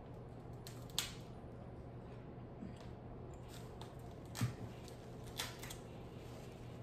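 Crab leg shell being cracked and snapped apart by hand, giving a few sharp cracks: one about a second in, then a cluster in the second half, the loudest a little past the middle.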